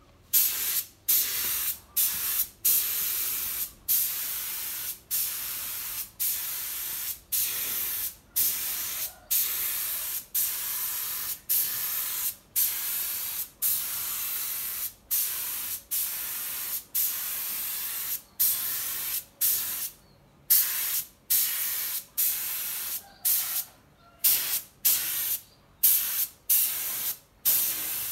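Air-powered spray gun hissing as it sprays finish onto carved wood, in short repeated bursts about a second long as the trigger is pulled and released.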